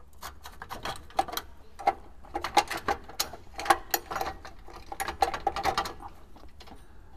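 Bolts, crush tubes and steel brackets clicking and rattling as a stack of long bolts is worked through the bracket by hand: a run of irregular small clicks and knocks, busiest in the middle.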